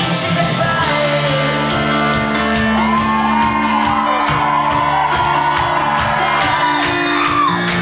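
Live rock band playing loud in a large hall: a woman sings in gliding, shouted phrases over a steady drumbeat and sustained bass notes.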